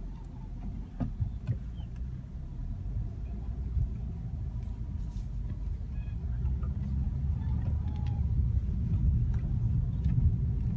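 Lexus GS 250 with a steady low car rumble, getting gradually louder, and a few faint short squeaks from the steering wheel: the steering creak whose cause the owner is asking about.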